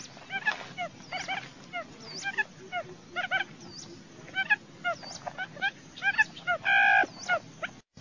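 Barred buttonquail calls played from a decoy recording of the kind used to lure the birds in. Short hooked chirping notes repeat several times a second, with one louder, longer call about seven seconds in and a brief dropout just before the end.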